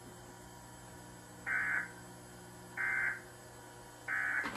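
Three short bursts of Emergency Alert System end-of-message data tones, each under half a second and about 1.3 s apart, closing a Severe Thunderstorm Warning. They play off a VHS tape through a TV speaker, over a low steady hum.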